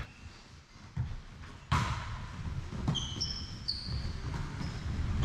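A volleyball struck with a sharp smack about a second and a half in, after a lighter knock. Then several short, high squeaks of sports shoes on the hall floor.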